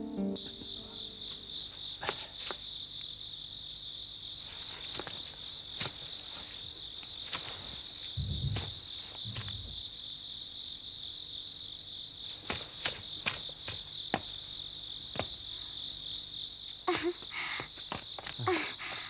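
Crickets chirping steadily as a night-time background, with scattered faint clicks and two soft low thuds about eight and nine seconds in.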